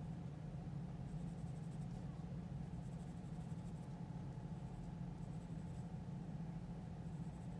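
Graphite pencil scratching faintly on drawing paper in short spells of sketching strokes, over a steady low hum.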